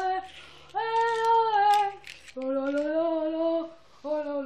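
A child's voice singing a celebratory crowd chant in three long held notes, the later two lower in pitch than the first, as the stadium cheering for the winning team.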